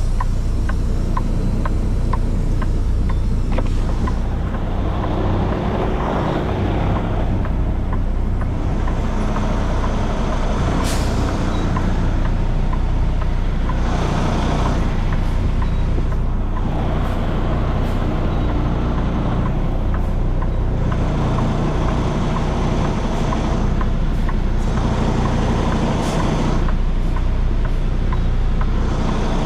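Semi truck running: a steady low engine drone with road and wind noise that swells and fades at irregular intervals.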